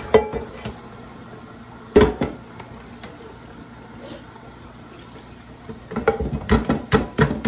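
Tap water running into a stainless steel sink while a pot of boiled turkey necks is drained through a plastic colander. A sharp knock of the metal pot comes at the start and again about two seconds in. Near the end there is a quick run of knocks and clatter as the turkey necks are tipped from the colander back into the steel pot.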